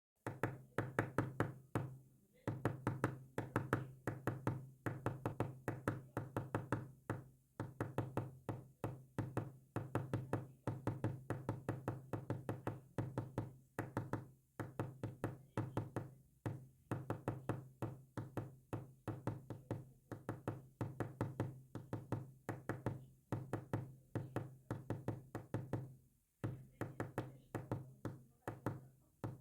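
Morse code tapped out as rapid, sharp knocks, several a second, bunched in groups separated by short pauses.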